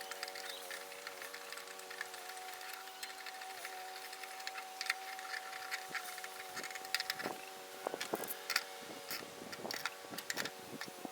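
Scattered light metallic clicks and clinks from hand-tool work on a mower, coming more often in the second half, over a steady even hum.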